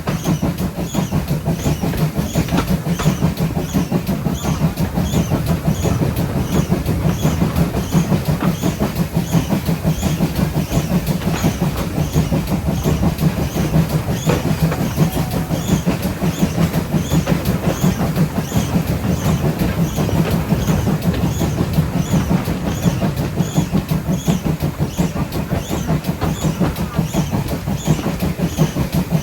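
Train running along the line behind GWR 57xx-class pannier tank steam locomotive 7754: steady rumble and rail noise with a regular repeating beat.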